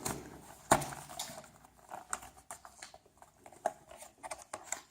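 Phone box and its packaging being handled: a series of light, irregular clicks, taps and rustles, the sharpest about a second in.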